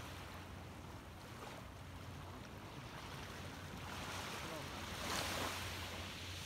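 Small waves washing up onto a sandy, pebbly beach; one wash builds about four seconds in, peaks around five seconds and then recedes.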